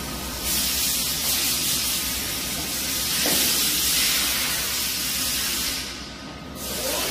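Hyundai WIA KBN-135 CNC horizontal boring mill running, a loud, steady hiss from its spindle head over a low machine hum. The hiss jumps up about half a second in, drops away briefly about six seconds in, then comes back.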